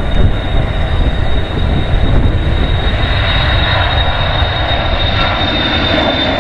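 Boeing 737-300's CFM56-3 turbofan engines at takeoff thrust as the jet lifts off and climbs away. A loud, steady rumble carries a thin high whine, and its brighter, higher tones grow stronger in the second half.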